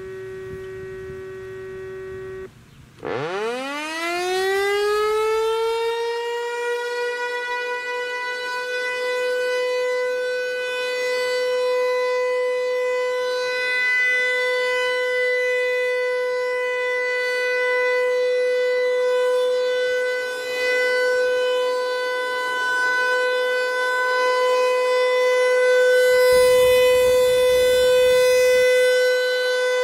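Federal Signal Equinox outdoor warning siren winding up about three seconds in, its pitch rising quickly and settling within a few seconds into a loud, steady tone that it holds for its test. For the first couple of seconds, before it starts, a steady electronic tone sounds.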